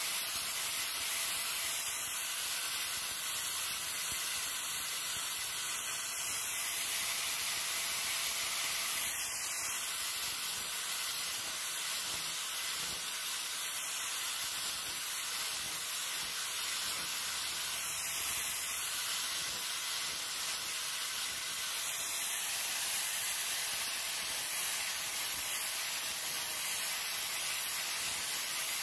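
Angle grinder with a sanding disc running steadily against a wooden machete handle, shaping and smoothing the wood: a continuous hiss with a faint steady motor tone underneath.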